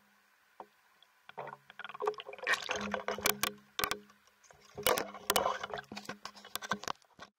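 Underwater water churning and bubbling, with many sharp clicks and knocks in two loud spells, from a diver moving and handling gear close to the camera. A faint steady low hum runs underneath.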